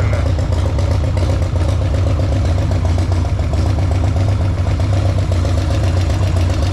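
Harley-Davidson Sportster V-twin engine idling steadily, with a light tapping from the front cylinder that the owner suspects is the hydraulic lifters or the oil.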